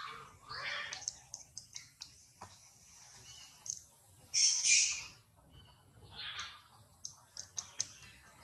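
A harsh, noisy animal call about four seconds in, the loudest sound, with softer calls before and after it and scattered light clicks.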